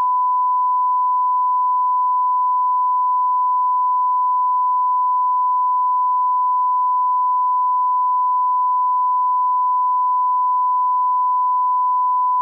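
One steady pure tone held without a break, with no change in pitch or level: a broadcast off-air test tone sounding after the station has ceased transmission.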